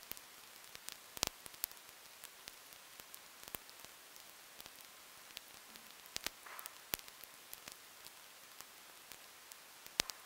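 Faint steady hiss with sparse raindrops ticking irregularly on a hard surface, the loudest ticks coming about a second in and near the end.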